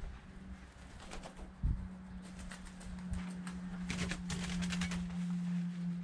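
Doves fluttering and scuffling in an enclosure, with a dense run of wing-flap rustles about four seconds in and a thump near the start, over a steady low hum.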